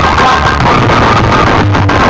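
Very loud music with heavy bass played through a large DJ sound system.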